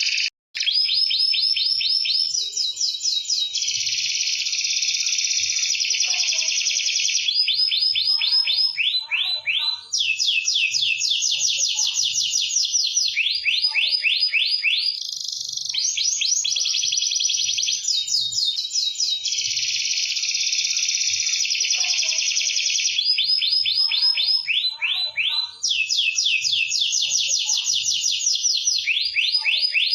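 Domestic canary singing continuously in long runs of fast trills and rolling repeated notes, with a momentary break just after the start.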